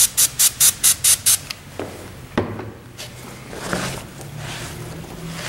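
Aerosol can of Windex glass cleaner sprayed in quick short bursts, about four a second, stopping after about a second and a half. Then a few light knocks and a microfiber cloth rubbing over the sprayed emblem.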